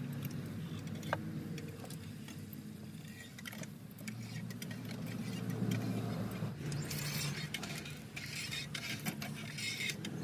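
A motor running steadily with a low hum, with scattered clicks and light metallic clinks, more of them in the second half.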